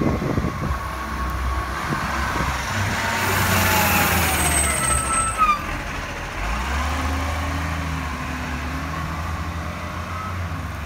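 Garbage compactor truck driving past with its diesel engine running. About halfway through, as it passes, there is a hiss with short squealing tones. The engine drone then steadies as the truck moves off.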